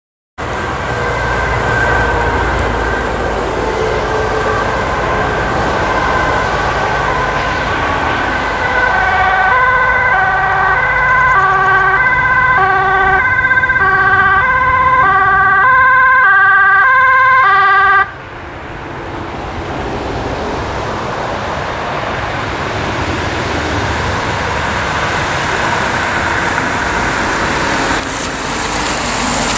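Two-tone emergency siren of a VW Golf medical response car on an urgent run, alternating between a high and a low pitch about every half second. It is faint at first, grows loud about a third of the way in, and breaks off suddenly just past halfway. After that comes the steady noise of the car's engine and tyres on the road.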